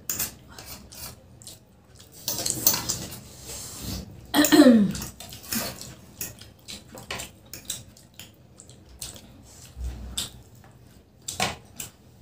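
Forks clicking and scraping on plates as two people eat spicy noodles, with a short vocal sound about four and a half seconds in.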